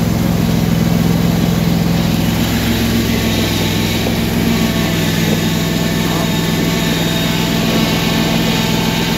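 Simplicity garden tractor's engine running steadily at low throttle while it pulls a loaded firewood trailer.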